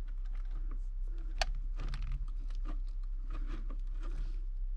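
Light, irregular clicking and tapping of small parts being handled at close range, with one sharper click about a second and a half in, over a faint steady low hum.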